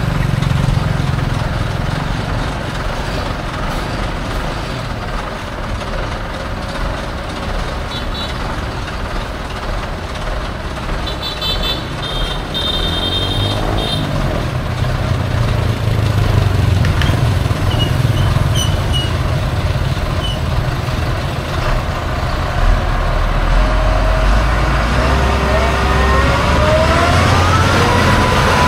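Motor vehicle engine running with road noise. A few short high beeps come about halfway through, and near the end the engine pitch rises in several quick sweeps.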